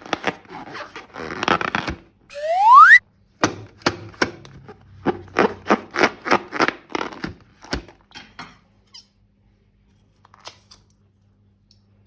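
Slime being squeezed and handled with a balloon: a run of short sticky clicks and squelches, with one loud squeak rising in pitch about two and a half seconds in. The handling stops about eight and a half seconds in.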